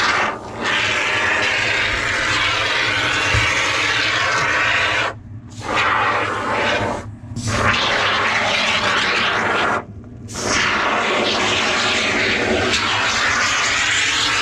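Foam gun dispensing black expanding foam: a loud, steady hiss with three short breaks.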